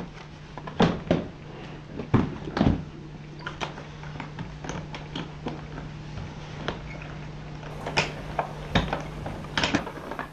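Hard-shell suitcase being closed and handled on a carpeted floor: a series of knocks and clicks from the lid and latches, the loudest about one and two seconds in. A steady low hum runs underneath.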